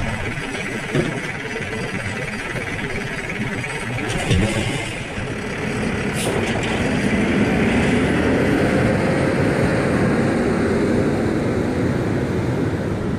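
Automated side-loader garbage truck at work: the engine runs under the hydraulic lifting arm as it tips and empties a wheeled trash cart, with sharp knocks as the cart is shaken and set back down. From about halfway through, the diesel engine revs up, rising in pitch, and stays loud.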